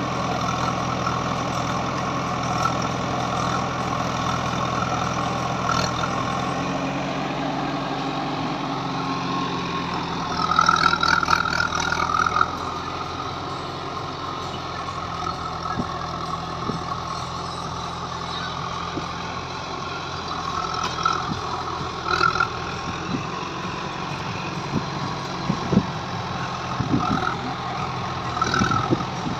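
Diesel engines of a JCB 3DX backhoe loader and a Mahindra tractor running steadily at low revs. About ten seconds in, a brief louder high-pitched pulsing sound; a few short knocks in the second half.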